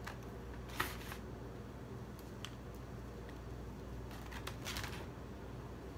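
Day-old cooked sticky rice being pulled apart by hand into small pieces in a woven bamboo basket: a few brief, soft rustles of fingers working the rice against the basket, the clearest just under a second in and another later on.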